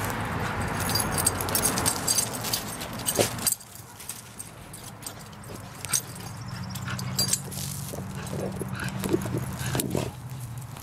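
A Border Collie–Labrador mix digging after a mole: its front paws scratch and scrape at loose dirt in quick, uneven strokes. The sound gets quieter about a third of the way in.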